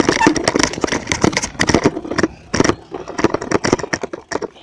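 Loud, rapid, irregular knocking and rattling over a rushing noise: a bike jolting over rough ground going down a hill. It cuts off just before the end.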